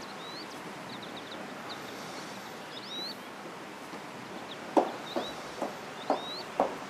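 Small birds chirping in outdoor background ambience. From about two-thirds of the way in, sharp footsteps of hard-soled shoes start on wooden decking, about two steps a second.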